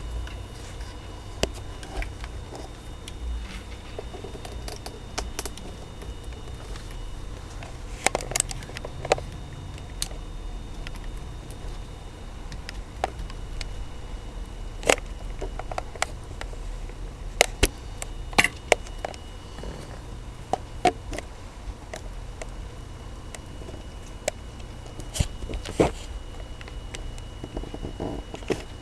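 Scattered light clicks and taps of hands working thin wires and small parts inside a CB radio's chassis, over a steady low hum.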